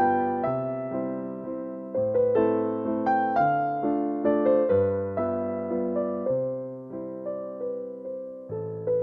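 Background music: a gentle piano-like keyboard tune played at a steady pace, each note struck and fading.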